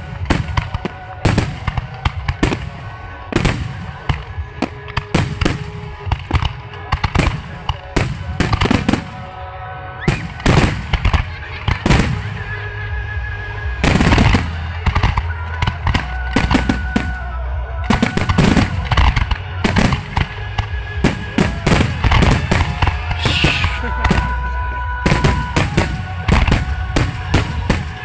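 Fireworks display: aerial shells bursting in quick, irregular bangs, several a second at times.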